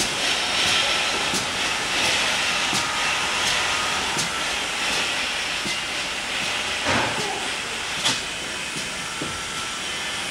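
GWR 4200-class 2-8-0 tank engine No 4247 hissing steam steadily, with a couple of sharp knocks about two-thirds of the way through.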